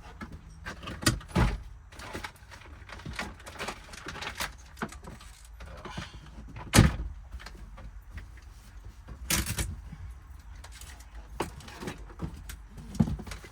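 Scattered knocks, clunks and rustling as loose items and trim are pulled out and handled inside a car cabin, with one sharp knock about seven seconds in and a longer scraping rustle a couple of seconds later.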